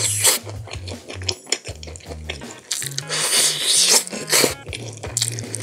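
Close-up wet eating sounds, smacks and clicks, of someone biting and chewing meat off a barbecue pork rib, with a longer noisy wet stretch about three seconds in. Background music with a bass line plays underneath.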